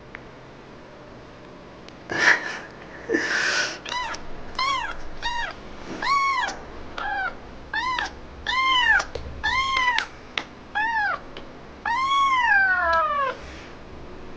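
Neonatal orange kitten crying in about a dozen high, arching meows, one after another, the last one longest with a falling tail. The cries come while it is being rubbed with a tissue to make it urinate. Two brief noisy bursts come just before the cries begin.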